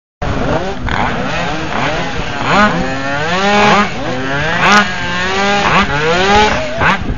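Two-stroke Minarelli engine of a drag bike being revved in short blips, its pitch rising and falling about once a second.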